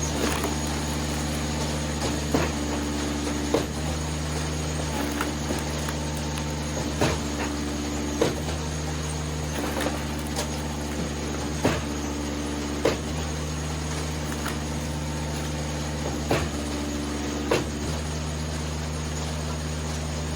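Eastonmade 37D hydraulic wood splitter running steadily while splitting poplar rounds, a higher tone coming and going as it works. Sharp knocks land every second or two as wood splits and pieces drop.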